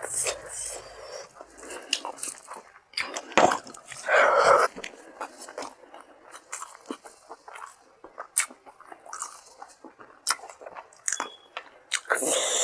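Close-up chewing and mouth smacking of a person eating rice with thin hilsa fish curry, with many small wet clicks and a louder noisy burst of about half a second about four seconds in.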